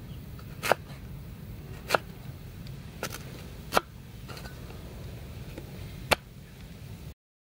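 A cleaver chops slices off a red-skinned sweet potato and strikes a wooden chopping board, making five sharp knocks at uneven intervals over a steady low hum.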